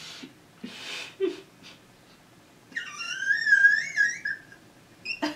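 A woman laughing: a few breathy puffs of laughter, then a loud, high-pitched wavering squeal of laughter lasting about a second and a half, followed by a quick breath near the end.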